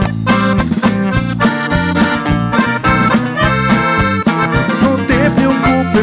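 Live band music led by accordion, with drum kit and a plucked string instrument keeping a steady beat, in an instrumental passage without singing.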